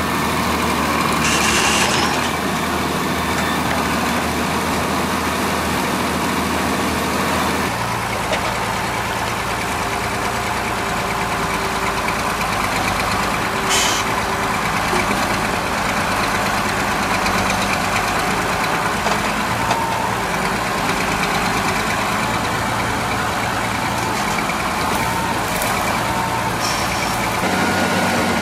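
Tractor engine running steadily under load while the front-end loader works a power shovel attachment, its pitch shifting about eight seconds in and again near the end. A few brief, sharper high-pitched sounds come over the engine now and then.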